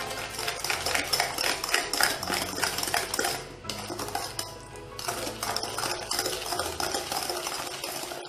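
A whisk beating a runny egg, sugar and oil mixture in a glass bowl: fast, continuous clattering of the whisk against the glass, easing off briefly a couple of times.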